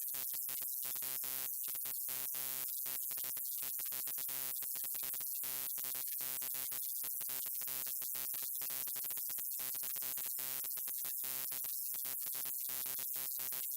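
Electrical buzz of a neon sign: a steady hum with many overtones and a layer of hiss, cutting out in brief irregular gaps several times a second.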